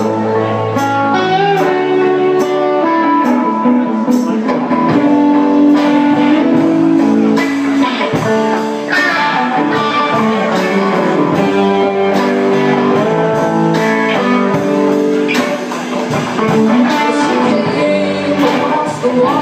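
Live band playing a song, with guitar prominent.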